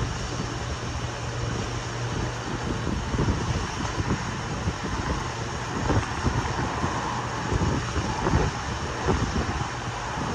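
Gusty wind buffeting the microphone, over a steady rumble, with a faint higher hum swelling in the middle.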